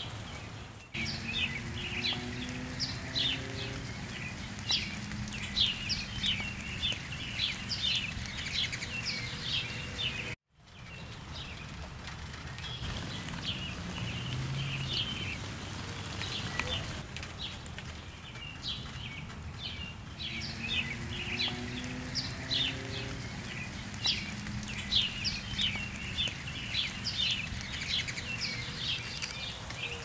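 Many small birds chirping in quick, high calls over a steady background of rain. The sound cuts out briefly about ten seconds in, then resumes.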